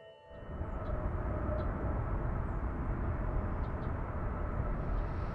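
Outdoor ambience: a steady low rumble, with a few faint, short high chirps scattered through it. Background music cuts off just as it begins.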